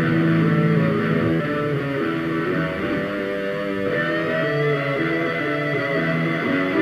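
Several layered electric guitar parts playing through a Fender G-DEC 3 Thirty combo amp, its looper in overdub mode, stacking a new guitar layer on the recorded loop. Sustained chords and notes sound together, and a long high note is held from about four seconds in.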